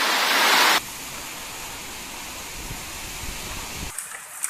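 Heavy rain and hail pouring down, a steady rushing hiss over a low rumble. The sound changes abruptly about a second in and again near the end, where sharp ticks of hail striking come through.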